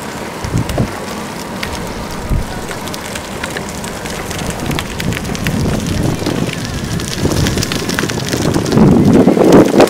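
Wind buffeting the microphone on a moving bicycle, over the hiss and crackle of bicycle tyres rolling on a road; the wind rumble swells and is loudest near the end.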